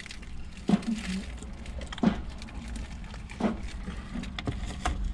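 Drinking soda through a straw: three soft swallows about a second and a half apart, with a few crinkles of a foil burger wrapper over a low steady hum.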